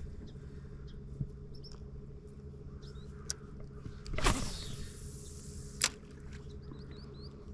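Steady hum of a boat motor, several even tones held throughout. A few sharp clicks and a brief rush of noise come about four seconds in, with faint high chirps now and then.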